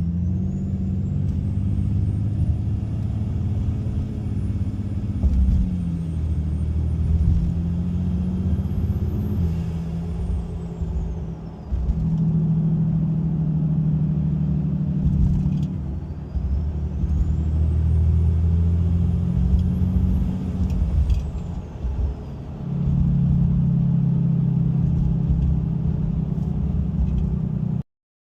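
A 6.7-litre Cummins turbo-diesel pulling hard under heavy throttle, heard through its Wehrli cold-air intake: a loud low engine drone, with a high turbo whistle that climbs and then falls away, twice.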